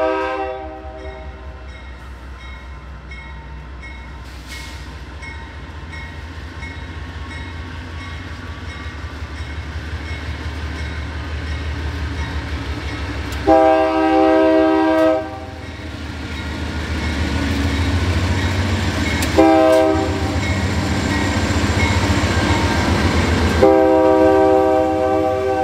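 Union Pacific diesel locomotive hauling a double-stack container train past, its engine's low rumble building as it nears. Its air horn sounds a blast that fades out at the start, a long blast about halfway through, a short one, and another long one near the end, a pattern that fits the long-long-short-long grade-crossing signal. The wheels of the container cars start rolling by near the end.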